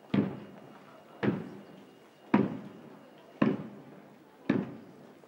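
Marching band's drum beating a steady marching time: five single strikes about a second apart, each ringing out briefly.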